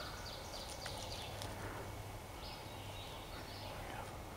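Wild songbirds singing in spring woods: several short phrases of quick repeated high notes, a few in the first second and more around the middle, over a faint steady low hum.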